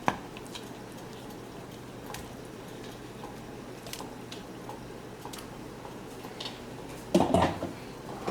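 Pieces of corn on the cob being added to a pot of soup: scattered small clicks and wet plops over a steady low hiss, then a louder clatter about seven seconds in.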